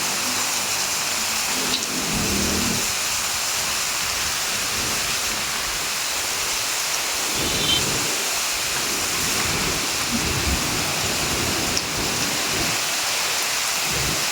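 Heavy rain falling steadily, a dense even hiss, with faint low rumbles now and then.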